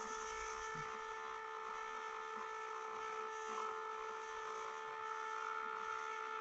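Ugly Box electrolysis unit with its vibrating 'Thunder' attachment running in the water: a steady, even electrical hum that holds one pitch throughout.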